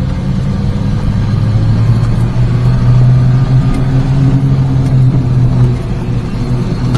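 Supercharged Daihatsu Hijet kei truck engine pulling away with a load of firewood in the bed, heard from inside the cab. The engine note climbs slightly in the first few seconds, holds steady, and eases off a little near the end.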